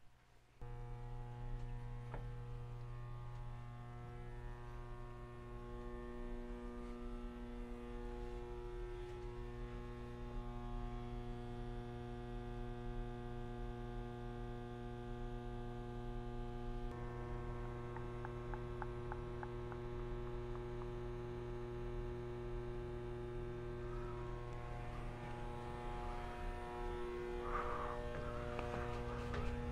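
Steady electrical mains hum: a buzz made of many evenly spaced overtones. It comes in sharply just after the start, and its mix of tones shifts about halfway through.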